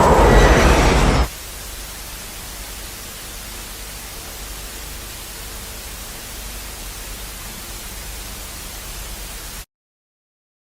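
A loud rushing noise cuts off abruptly about a second in and is replaced by a steady hiss of TV static, the broadcast signal lost as the station goes off the air. The static stops dead near the end, leaving silence.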